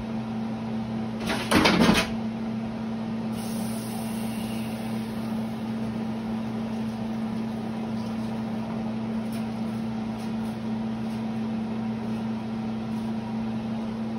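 Steady electrical hum of a kitchen appliance, with a brief loud rush of tap water about a second and a half in, then faint running water as a bunch of cilantro is rinsed at the sink to wash out grit.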